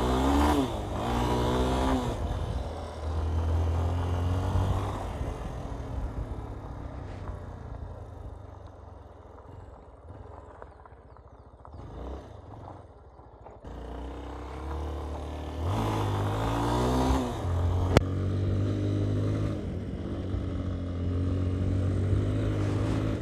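Yamaha Ténéré 250's single-cylinder engine running under the rider on a dirt road, revving up about a second in and again around sixteen seconds, and easing to a quieter note for a few seconds in the middle. A single sharp tick comes at about eighteen seconds.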